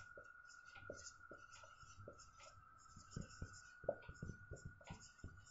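Marker pen writing on a whiteboard: faint, irregular short strokes and taps as letters are drawn, over a faint steady high-pitched whine.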